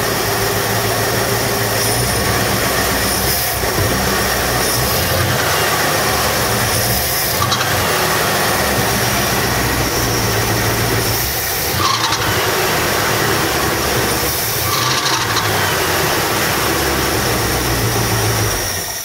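Big-block Ford V8 with a four-barrel carburetor running steadily, fed from a temporary one-gallon lawnmower fuel tank; it runs like a champ.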